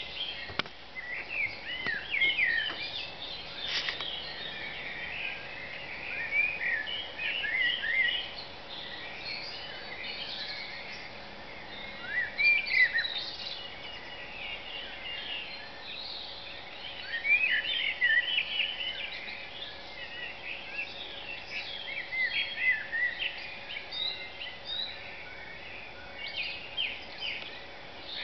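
Dawn chorus: many songbirds singing at once, their songs, trills and chirps overlapping continuously, with individual songs rising above the rest now and then.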